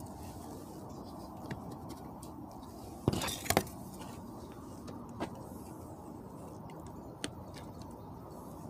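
Handling noise: a short burst of sharp clicks and rustle about three seconds in, then a couple of lighter single clicks, over a steady low outdoor hum.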